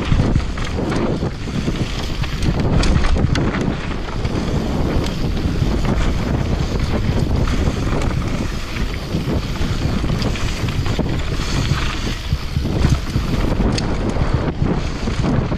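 Commencal downhill mountain bike descending a trail at speed: heavy wind rumble on the GoPro microphone, tyres rolling over dirt and rocks, and frequent knocks and rattles from the bike over bumps.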